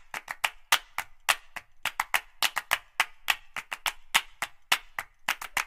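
Percussive intro music: a quick, uneven run of sharp clap-like hits, about four or five a second, with no melody.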